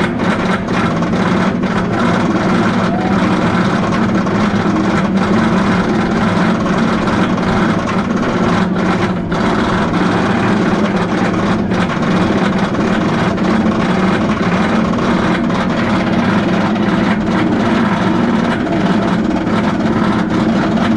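Roller coaster lift mechanism hauling the train up a steep lift hill, heard from on board: a loud, steady mechanical drone with scattered clicks.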